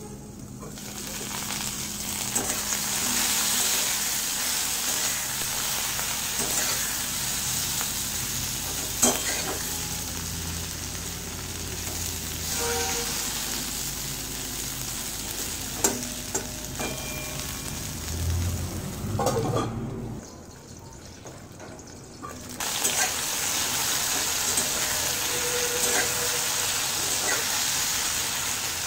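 Eggplant pieces frying in hot oil in a metal kadai: a steady sizzle, with a metal spatula scraping and knocking against the pan now and then as the pieces are turned. About two-thirds of the way through, the sizzle briefly drops away and then comes back.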